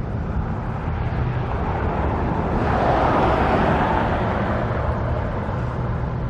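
A road vehicle driving past, its tyre and engine noise swelling to a peak about halfway through and then fading, over a steady low traffic rumble.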